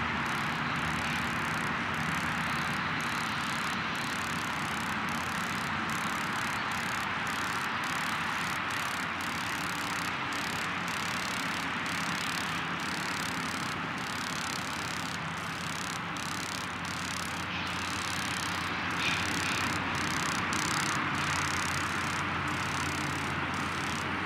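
Colorado & Southern 2-6-0 steam locomotive No. 9 hauling its train at a distance: a steady rumble and rush with a faint low hum and no distinct exhaust beat.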